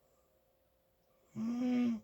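Loud snoring: one snore with a steady humming pitch begins about a second and a half in and lasts about half a second, part of a regular run of snores roughly two seconds apart.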